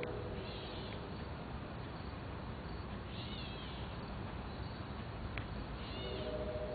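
Three short, high, arching animal calls, about three seconds apart, over a steady hiss. A steady low hum comes in near the end.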